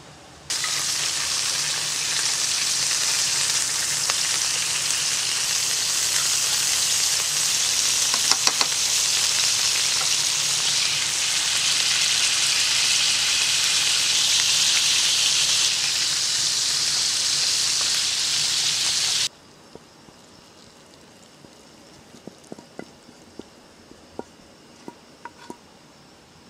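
Whole squid frying in hot oil and butter in a pan: a loud, steady sizzle that starts suddenly and cuts off abruptly after about nineteen seconds.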